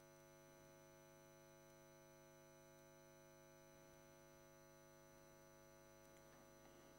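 Near silence, with only a faint, steady electrical hum.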